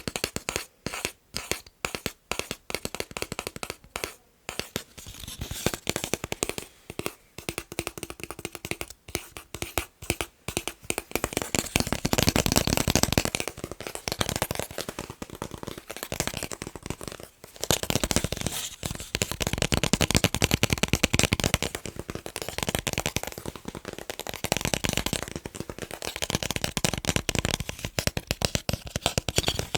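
Fast tapping on picture frames: a rapid run of sharp clicks and taps. About twelve seconds in the tapping turns denser and louder, almost continuous.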